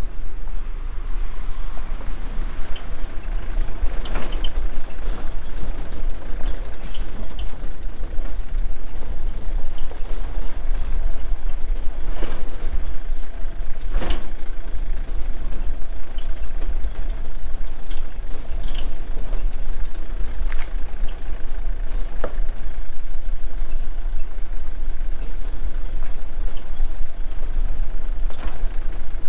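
A car driving slowly along a bumpy dirt track: a steady low rumble of engine and tyres, with a few sharp knocks and rattles from the body as it goes over bumps.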